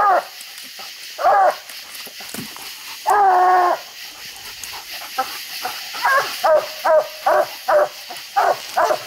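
Walker coonhound barking treed, signalling a raccoon up the tree. There are a couple of single barks, then one longer drawn-out bawl about three seconds in, then a quick run of chop barks about two a second in the last three seconds.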